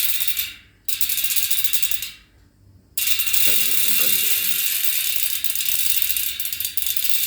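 Sagmit M120 ratchet-type bicycle rear hub freewheeling: a fast buzz of ratchet clicks in three spins. The first two spins last about a second each, and the last runs about five seconds from around three seconds in.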